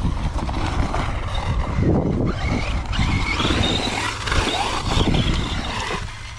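Traxxas Sledge RC monster truck driving hard on its brushless motor: a motor whine that rises and falls in pitch over tyre and dirt noise, with a low wind rumble on the microphone.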